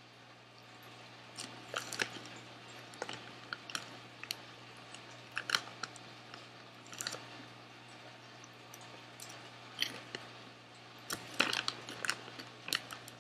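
Someone chewing Smartfood Marshmallow Hot Cocoa popcorn, with scattered, irregular crunches and the crinkle of the foil snack bag as a hand reaches in. The crunches come closer together near the end.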